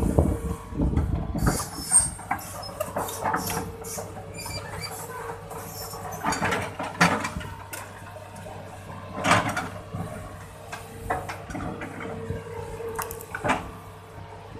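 Hitachi excavator running steadily while its arm works, with irregular sharp knocks from the moving parts.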